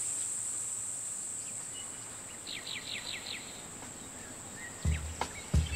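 Steady high-pitched insect chirring, with a quick run of about six short chirps a couple of seconds in. Low thumps begin near the end.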